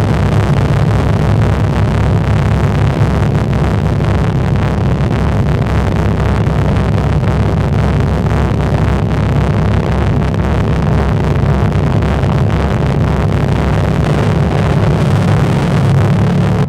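A loud, steady rumbling noise, heaviest in the low end, with a rough crackling texture over it; it drops away abruptly at the very end.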